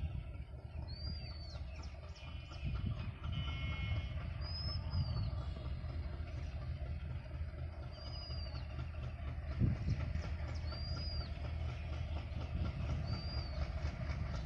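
WDM-3A diesel-electric locomotive, with its 16-cylinder ALCO 251 engine, running with a steady low rumble as it hauls a long covered-wagon freight train slowly toward the listener. There is a single short thump just under ten seconds in.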